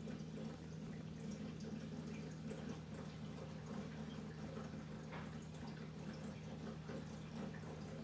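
Aquarium sump filtration running: water trickling and dripping over a steady low hum.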